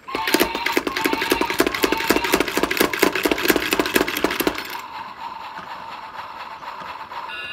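Bolz pump-action spinning top: the plunger is pumped hard with a rapid ratcheting clatter for about four and a half seconds. Then the top spins free with a steady whirr, and near the end its humming chord of several steady tones starts up.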